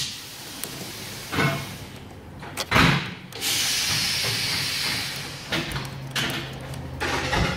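Steel ratchet, extension and socket knocking and clinking as they are handled at a battery cable clamp. There are a few sharp knocks, with about two seconds of hissing rush in the middle.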